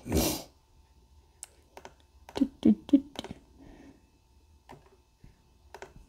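A short, loud breath or sniff at the start, then a scatter of faint clicks with a few soft mouth noises, as from someone clicking a computer mouse while pausing between sentences.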